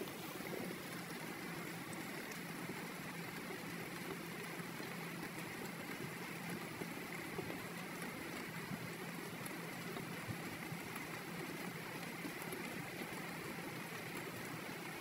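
Cooking oil heating in a frying pan, sizzling faintly and steadily with fine crackles around a little batter in it, not yet hot enough for frying.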